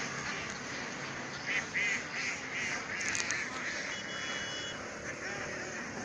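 Ducks quacking, a quick run of repeated calls in the middle, over steady background noise.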